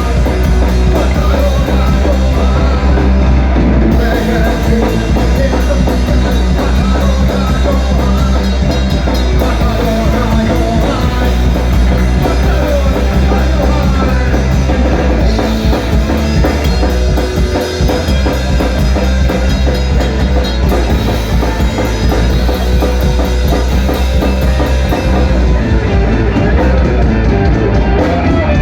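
A rock band playing with drum kit, bass and guitar, loud and continuous.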